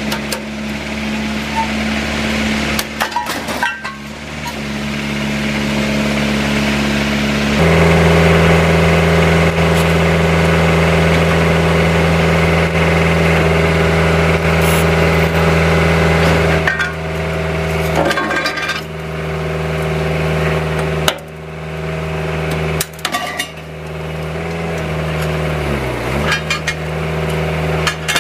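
Excavator diesel engine running steadily, then dropping in pitch and getting louder for about nine seconds from about eight seconds in as the hydraulics take load. Sharp metallic clanks and cracks come from a hydraulic scrap shear cutting steel tubing.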